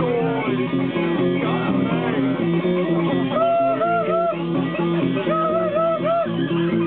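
Guitars jamming: a repeating run of low plucked notes keeps going throughout. About halfway in, a higher wavering melody line joins and comes back three times, about every two seconds.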